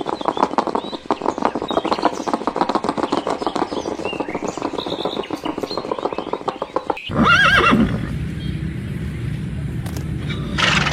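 Rapid clatter of horse hooves for about seven seconds, then a horse neighing loudly with a wavering pitch, and a shorter call near the end.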